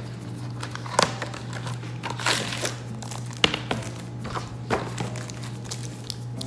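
Packaging being handled: a plastic sleeve around an iPad case crinkling and rustling as it is slid out of its cardboard box, with a few sharp taps and knocks from the box and case.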